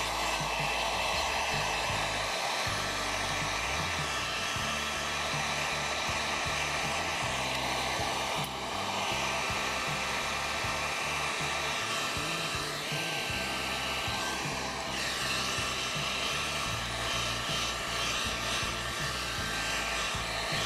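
Electric heat gun on its low setting, its fan blowing steadily with a thin whine over the rush of air.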